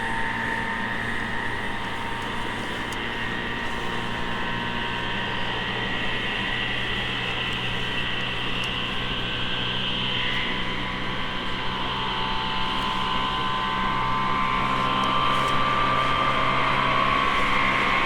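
E217-series electric train running, heard from inside a car: a steady motor and gear whine over a low rumble, the whine climbing slightly in pitch and growing louder in the second half.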